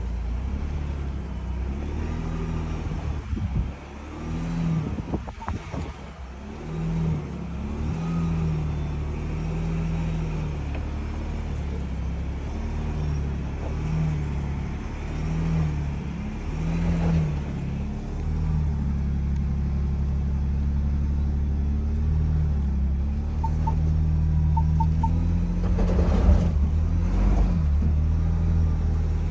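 Ford Bronco's engine running at low revs under load as it crawls up a steep dirt trail, its note rising and falling with the throttle. A few knocks early on and a louder rustling stretch near the end, with three faint short beeps just before it.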